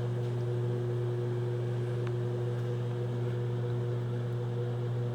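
Microwave oven running with a steady low electrical hum.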